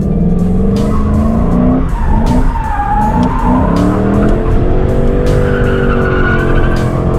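Ford Mustang engine revving hard under acceleration, heard from inside the cabin: its pitch climbs, drops twice about two and three seconds in as it shifts up, then climbs steadily again. The tyres squeal briefly about halfway through as the car is flung through a tight turn.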